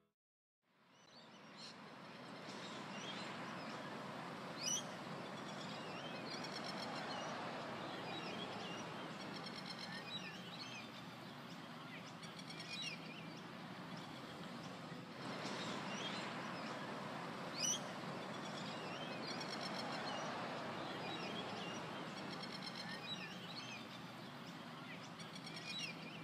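Outdoor park ambience: a steady rushing background with birds chirping and trilling over and over. A sharper, louder chirp comes about five seconds in and again near eighteen seconds.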